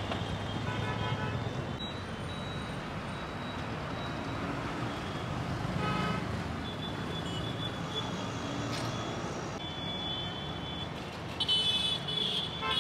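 Road traffic running steadily, with vehicle horns tooting several times, the loudest near the end.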